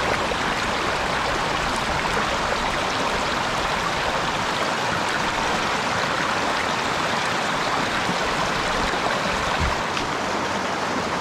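Shallow mountain stream running fast over rocks and stones, a steady, even rush of water.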